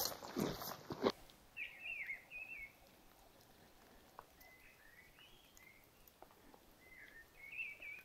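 Boot footsteps crunching on a wet gravel track, stopping about a second in. Then quiet forest with a small bird giving short chirping calls in three brief bouts.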